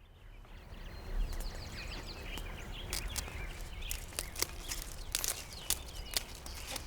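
Outdoor ambience with small birds chirping in quick sliding notes over a low rumble, and a scattering of sharp clicks, the loudest about three to six seconds in.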